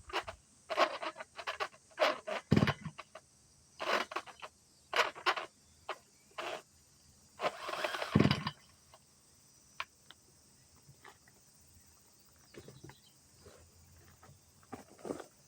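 Kubota KC2750Hb brush cutter's recoil starter pulled again and again in short, jerky strokes, each pull a brief rattle that stops short as the cord catches: the abnormal rattling and catching of a damaged recoil starter or engine. After about eight and a half seconds the pulls stop and only faint handling taps remain.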